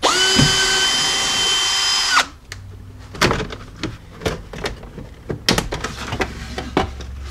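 Cordless power drill-driver running for about two seconds with a steady whine, backing out a screw from the plastic door-sill trim. It stops abruptly, followed by a string of light plastic clicks and knocks as the sill trim panel is worked loose and lifted.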